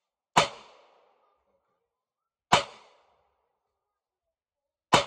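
Three semi-automatic pistol shots, evenly spaced a little over two seconds apart, each sharp crack followed by a short echo that dies away in about half a second.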